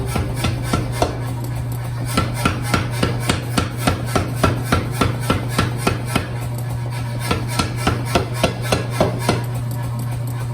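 Hammer blows on hot wrought iron at the anvil, about three strikes a second in runs with short pauses, as an old leg vise is forged down. A steady low hum runs underneath.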